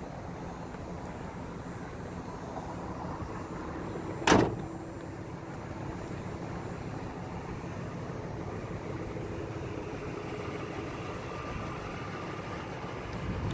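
Pickup truck tailgate shut with a single sharp thud about four seconds in, over steady low background noise.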